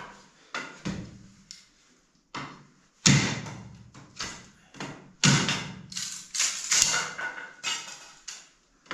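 Firewood being split and broken: a run of sharp wooden knocks and cracks about every half second, the loudest two about three and five seconds in.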